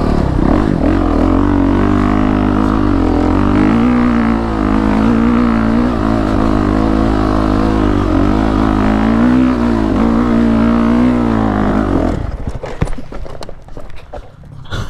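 Honda CRF450RX's 450 cc single-cylinder four-stroke engine pulling hard up a loose sandy, rocky hill climb, its revs rising and falling as the rider works the throttle. About twelve seconds in the engine sound stops.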